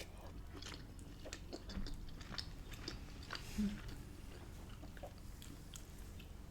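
A person chewing food close to the microphone: irregular small wet clicks and smacks of the mouth, one a little louder about three and a half seconds in.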